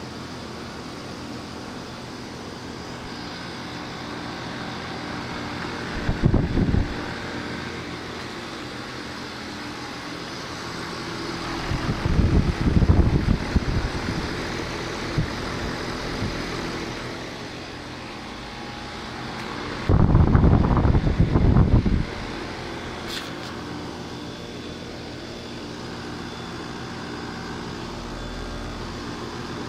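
Outdoor air conditioner units running with a steady hum. It is broken three times by loud, low rumbling bursts: briefly about 6 seconds in, longer around 12 to 15 seconds, and again for about two seconds near 20 seconds.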